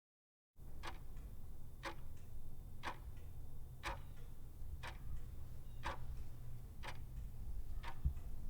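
Ticking that starts about half a second in: sharp ticks exactly once a second, eight in all, over a low steady rumble, like a clock's second hand.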